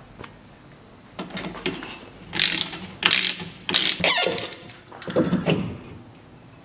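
Hand ratchet wrench clicking in several short runs, starting about a second in, as bolts are wound into the threaded holes of a rear brake drum to push it off the hub.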